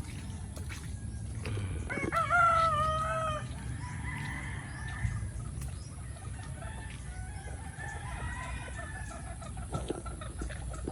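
A rooster crowing once, loud and clear about two seconds in, followed by fainter, more distant crows.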